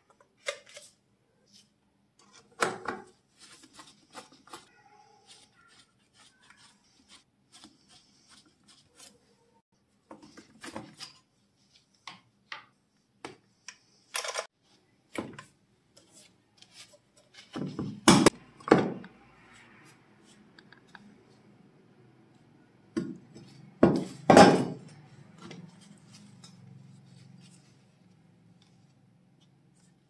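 Metal casing and parts of a figurine-shaped gas table lighter clicking, tapping and clanking as it is taken apart by hand. There are scattered light taps and scrapes, with a few louder clanks about two thirds and three quarters of the way through.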